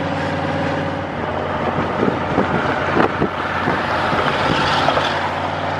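Steady engine drone with tyre and wind noise inside a vehicle moving at highway speed, with a few short thumps about two to three seconds in.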